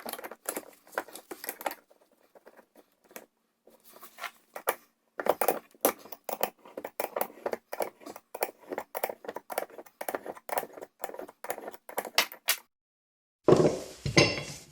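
Rapid run of small sharp clicks and taps, about four to five a second, from tools and metal motor parts being handled while the front bearing is worked off the armature shaft. A short pause, then a louder burst of handling near the end.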